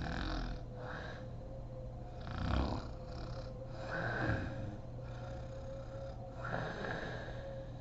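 Woman snoring in her sleep, a rasping snore on each breath about every two seconds.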